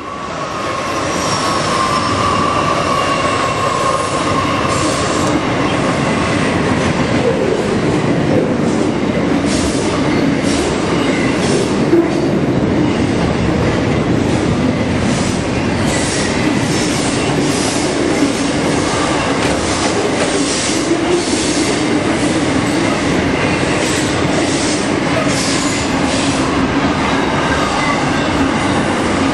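Freight train passing close by: a diesel locomotive followed by a long string of wagons, loud and steady, with the wheels clacking over rail joints and a high whine in the first few seconds.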